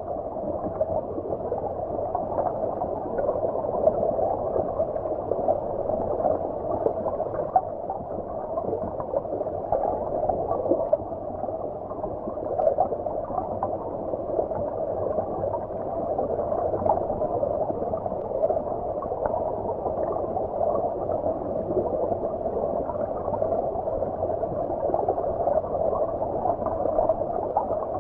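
Stream water flowing and gurgling, heard from underwater: a steady, muffled bubbling with small scattered pops and no high tones.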